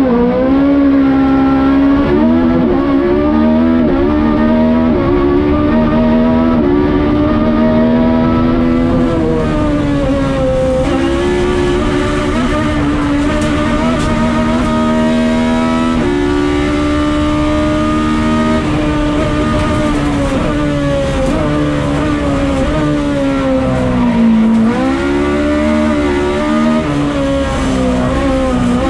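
Spiess-tuned VW Golf 16V four-cylinder race engine screaming at high revs, heard from inside the cabin. The pitch climbs and steps down again and again through gear changes, and drops deeply about three-quarters of the way through as the car slows, then rises again under full throttle.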